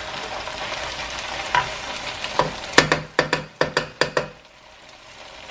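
Food sizzling in a frying pan while it is stirred with a spoon. About halfway through comes a quick run of about seven sharp knocks of the spoon against the pan, and then the sizzle drops away for a moment before it slowly comes back.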